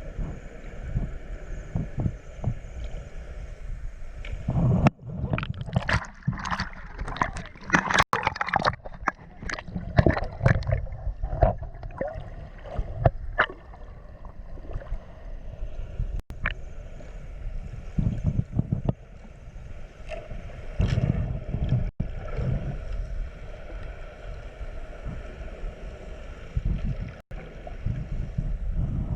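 Muffled underwater rumble and gurgling, with a dense run of bubbling bursts from about five to thirteen seconds in and scattered ones after.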